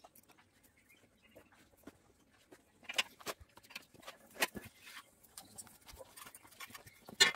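Scattered metal clinks and taps of hand tools against a small air-cooled engine block as it is dismantled, the loudest one near the end.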